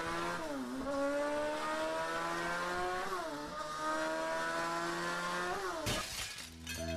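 Motorcycle engine accelerating hard through the gears, its pitch climbing and dropping back at each of three shifts. A sudden crash follows about six seconds in as the motorcycle hits a turning car.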